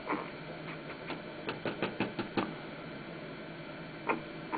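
Irregular clicks and ticks, a cluster of them in the first half and two more near the end, over a steady low hum: low-frequency microphonics from a Thomas Oscillator LED circuit as its wires are handled, reproduced by an AM radio as if the circuit were a microphone.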